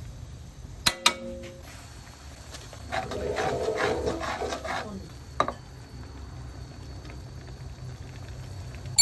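A cooking utensil clinks twice against a pot about a second in, then stirring and scraping in the pot for about two seconds, and one more short knock.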